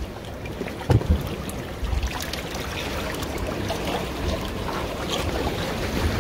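Seawater lapping and trickling among shoreline rocks, with wind buffeting the microphone and a small knock about a second in.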